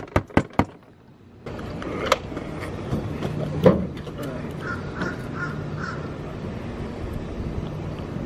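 A quick run of sharp clicks at the start, then knocks as a moped is lifted into a pickup truck bed, the louder one about halfway through. A crow caws four times in quick succession over the steady outdoor background.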